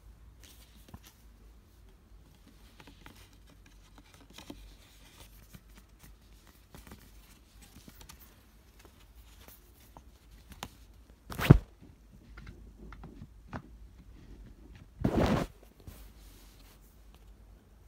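A paper CD booklet and cardboard digipak being handled: soft intermittent rustling and sliding of paper and card, a sharp tap about two-thirds of the way through, and a louder half-second slide of card a few seconds later.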